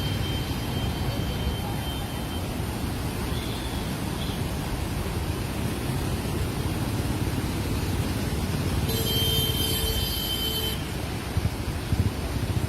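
Steady loud roar of a flooded river in spate, muddy floodwater and debris rushing down the channel. A brief shrill tone sounds for about two seconds near the end.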